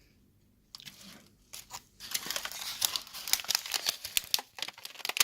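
Dry crinkling and crackling as a packet of dried star moss is handled, the moss very dry. Only a few crackles in the first two seconds, then a dense run of sharp crackles.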